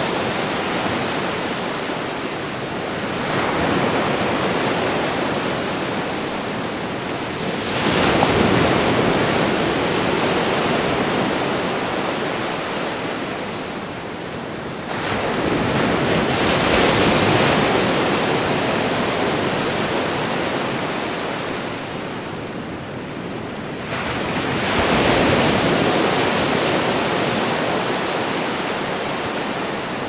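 Ocean waves breaking over a steady wash of surf. Four waves break, a few seconds in, about eight seconds in, about fifteen and about twenty-four seconds in, and each fades slowly back into the wash.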